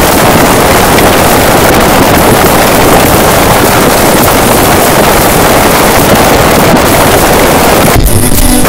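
A pop song boosted far past clipping into a harsh, full-volume wall of distorted noise, with no tune or words made out. The noise thins briefly near the end.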